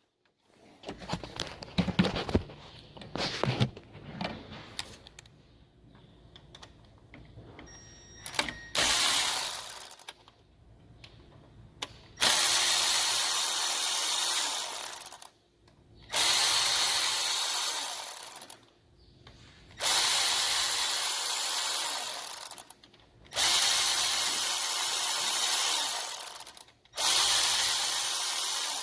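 Handheld power tool running in repeated bursts of about three seconds with short pauses between, spinning out small bolts on the engine. Light clicks and clatter of parts being handled come before the first burst.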